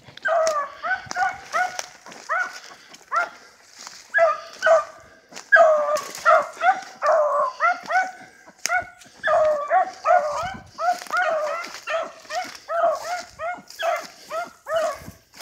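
Beagles giving tongue while running a rabbit: a steady string of short, high, yelping chop barks, about three a second, with a couple of brief pauses.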